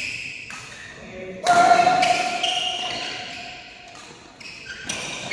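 Badminton rally: sharp racket strikes on the shuttlecock every second or so, ringing in a large hall, with shoes squeaking on the court floor.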